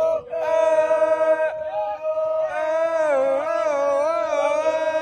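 Voices singing a drawn-out chant, with long held notes that bend up and down in pitch.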